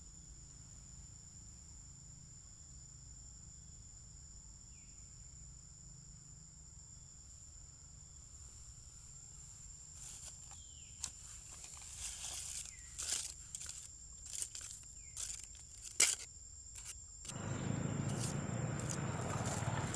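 A steady high-pitched insect drone. Over it, from about halfway through, comes scattered rustling and sharp clicks from monkeys moving about on dry leaf litter. Near the end, after a cut, a louder steady rushing noise takes over.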